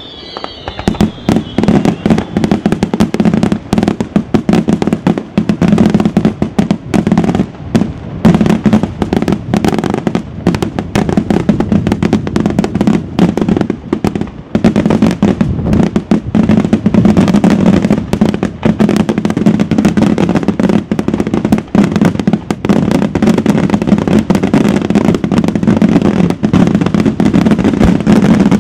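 Aerial fireworks display by Gioiese Fireworks: a dense, unbroken barrage of shell bursts and crackling reports, many bangs a second over a steady rumble.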